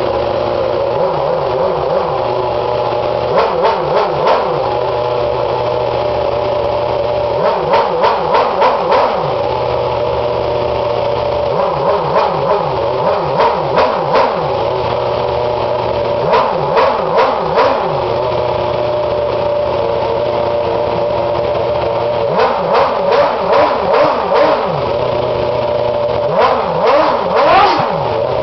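A Red Bull Formula One car's engine idling steadily, blipped by hand in about seven short bursts of several quick revs each, a few seconds apart.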